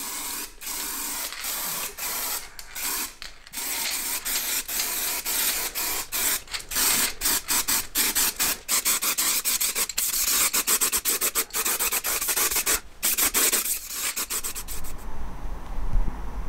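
Aerosol can of etch primer spraying in many short hissing bursts with brief breaks between them, stopping about a second before the end.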